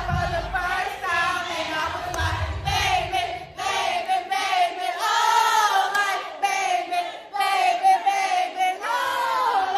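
A crowd of voices singing and shouting along together over music. A bass beat is under it at first and drops out about three seconds in.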